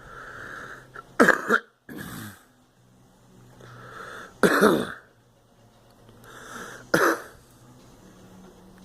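A girl coughing in three bouts about three seconds apart, the first a double cough.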